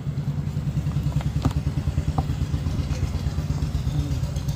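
An engine running steadily at idle, a low, evenly pulsing drone, with a few light clicks a second or two in as the cardboard phone box is handled and opened.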